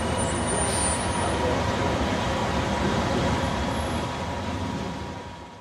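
Steady city street traffic noise, cars and trucks running past, fading out near the end.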